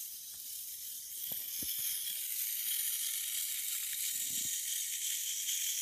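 Toy line-following tank's small electric motor and plastic gears whirring steadily as it drives along a drawn black line, with a few faint clicks about a second and a half in.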